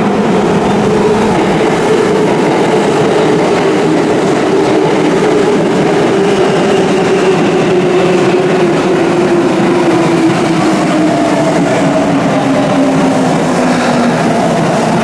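Electric train pulling into a station platform and slowing, its traction motors whining in several tones that fall steadily in pitch as it brakes.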